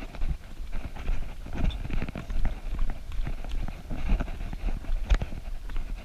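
Running footfalls on a dirt forest trail: a steady rhythm of soft thuds and light scuffs.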